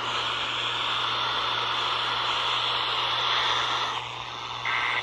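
Steady static hiss from a radio receiver between broadcasts, with a constant low hum under it. The hiss drops just before the end, and a short buzzy digital data burst begins, the start of an Emergency Alert System header.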